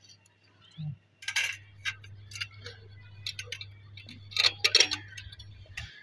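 Small metal parts clinking and tapping as a steel angle, bracket and bolts are handled and fitted together: a string of irregular light clicks, busiest about a second in and again about four and a half seconds in.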